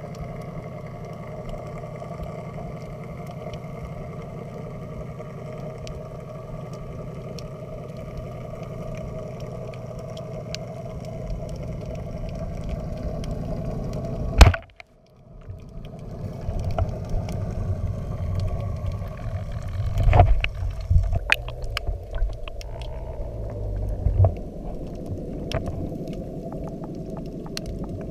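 Underwater ambience through a camera housing, a steady low rumble and hiss. About halfway, a single loud sharp crack from a wooden band speargun firing at a fish, followed by irregular knocks and low thumps as the speared fish struggles.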